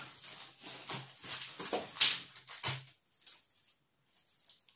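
A wicker basket creaking and crackling as it is lifted out of a cardboard box, with rustling of the packing. The loudest crackle comes about two seconds in, and after about three seconds only faint rustles remain.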